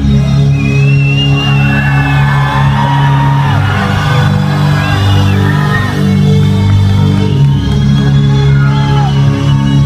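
Loud intro music through the concert PA, sustained low chords shifting every second or two, with the crowd shouting and whooping over it.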